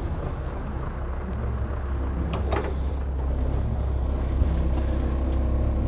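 Heavy earthmoving machine's diesel engine running steadily with a deep rumble, with a short higher-pitched noise about two and a half seconds in.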